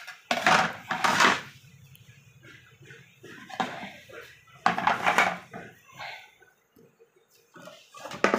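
Serving trays being handled on a table, clattering and scraping against the table and each other. Two louder bursts come about half a second in and again around the middle, with softer knocks in between.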